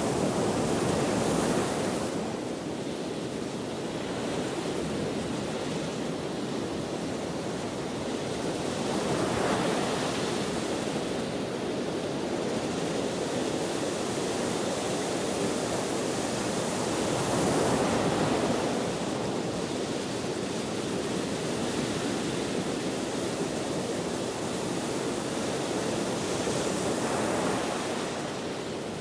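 Ocean waves breaking and washing on a shore in steady wind, a constant rushing with a wave swelling up about every eight seconds.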